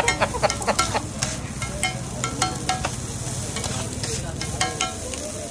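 A flat metal spatula clinking and scraping on a large griddle as it chops and turns scrambled egg, over the steady sizzle of eggs frying. The strikes come rapidly in the first second, then at a slower, uneven pace.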